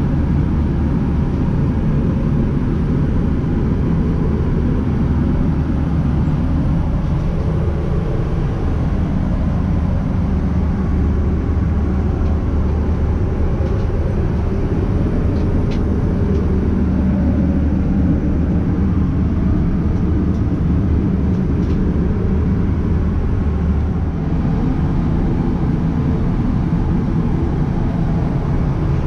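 Steady low rumble of an Airbus A320's passenger cabin in flight: engine and airflow noise.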